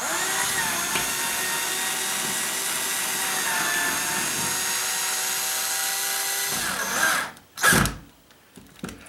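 12-volt cordless drill driving a long screw into a stucco wall, its motor running steadily for about six and a half seconds and then stopping, followed by two brief bursts. The screw goes in far without hitting anything, with no plywood behind the stucco to grip.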